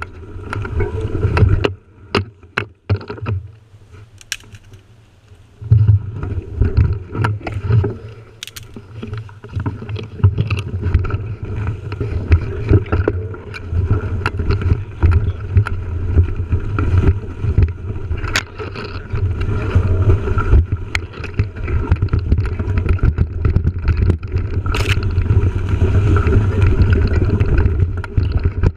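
Mountain bike rolling over a rough dirt and leaf-litter trail, heard through a bike-mounted action camera: a steady low rumble of wind and tyre noise, with frequent sharp rattles and knocks from the bike over bumps. It goes quieter for a few seconds about two seconds in, then picks up again.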